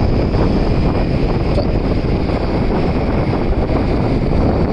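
Wind buffeting the microphone of a camera travelling at speed in a moving vehicle: a loud, steady rushing noise, deepest in the low end.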